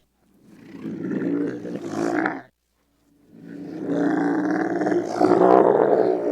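Camel calls played in reverse: two deep, throaty calls, each growing louder and then cutting off abruptly, the second longer than the first after a short pause.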